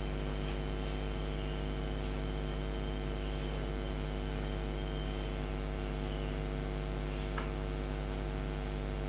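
Steady electrical mains hum with an even stack of overtones, picked up through a corded microphone and sound system.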